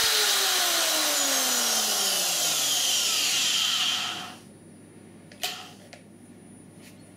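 580-watt electric drill, run as a load on a sine-wave inverter, released and spinning down: its motor whine falls steadily in pitch and dies away about four seconds in. A single sharp click comes about a second later.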